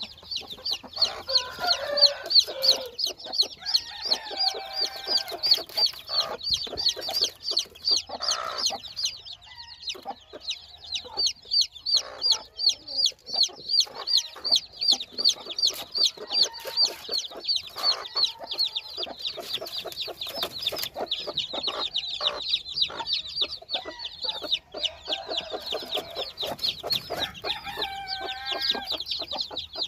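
Newly hatched chicks peeping continuously, a rapid run of short high chirps, with the broody mother hen's low clucking joining in about a second in and again near the end.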